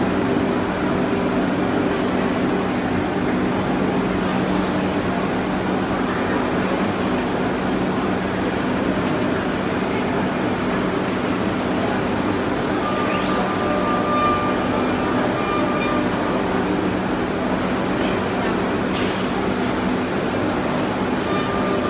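Multi-spindle 4-axis CNC wood lathe for chair and table legs running as it machines wooden blanks: a steady mechanical hum with a low motor drone. A higher whine comes in about two-thirds of the way through, stops a few seconds later, and returns near the end.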